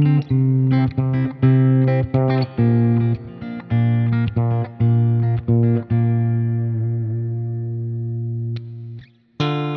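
Yamaha Pacifica 112VM electric guitar being played: a run of picked single notes, then one note held for about three seconds that fades and stops, a brief gap, and picking starts again right at the end.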